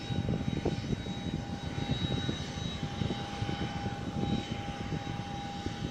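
Aircraft engine running steadily: a constant whine over a rough, fluctuating rumble.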